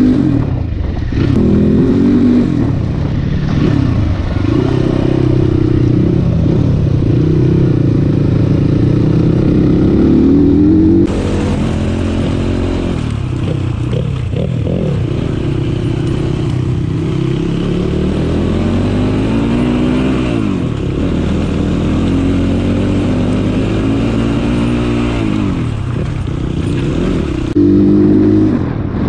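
Crossfire 250 cc dirt bike engine running under way on a rough track, its pitch repeatedly rising and falling as the throttle opens and closes. The sound changes abruptly about eleven seconds in and again near the end.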